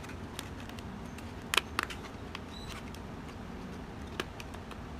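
Light clicks and taps of a cardboard truck cab being handled and fitted onto a small model chassis, the loudest a quick pair about a second and a half in and another near the end, over a steady low hum.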